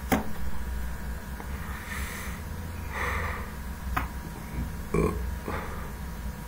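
A person smoking a cigarette and sipping coffee: breathy puffs of drawing in and blowing out smoke, a gulp about five seconds in, and two sharp clicks, over a steady low hum.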